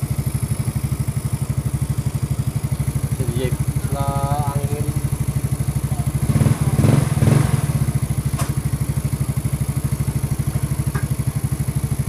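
Yamaha Mio Sporty scooter's air-cooled single-cylinder four-stroke engine idling with a steady, even beat, during a tune-up. It swells briefly louder about six to seven and a half seconds in.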